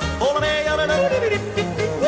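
Background music: a song with a yodeling voice leaping between notes over a rhythmic bass accompaniment.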